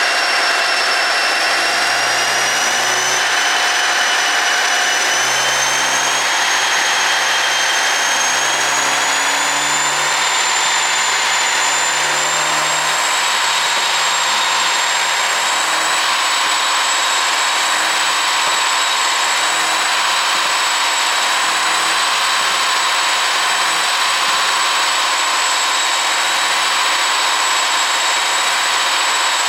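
A car engine running steadily with a high-pitched whine over a faint low engine note. The whine's pitch creeps up over the first ten seconds or so and then holds, and there are no exhaust pops or crackles.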